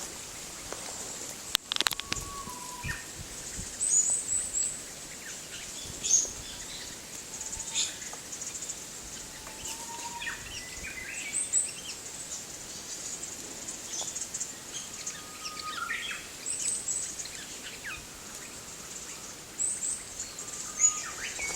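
Japanese paradise flycatcher calling: clusters of short, high chirps every few seconds, with a few lower whistled notes between them, over a steady high hiss.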